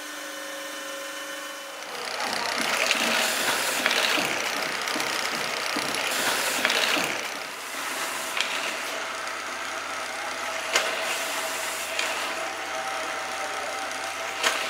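A steady machine hum for about two seconds, then a bench drill press working a small piece: a rough grinding scrape that swells and eases, with a few sharp clicks.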